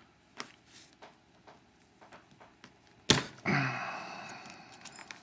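Handling of a small lock and metal tools at a vise: a few faint clicks, then a sharp knock about three seconds in followed by a scraping rattle that fades over a second or so.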